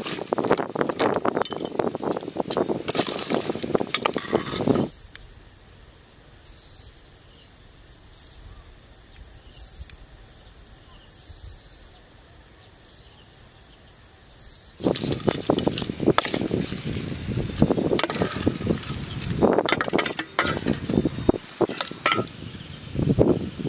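Metal spoon scraping and clinking against a stainless steel pot as a wet, chunky crab salad is scooped and tipped out. For about ten seconds in the middle the clinking stops, leaving only insects calling in short high pulses about every second and a half.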